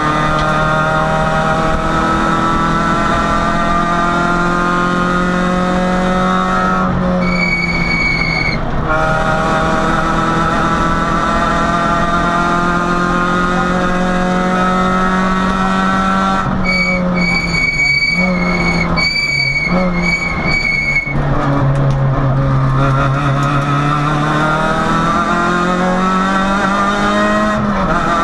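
Peugeot 106 rally car's engine heard from inside the cabin, revving hard and climbing in pitch through the gears, with the pitch dropping at each change. A high steady squeal cuts in briefly about a quarter of the way in, and again as several short squeals around two-thirds through.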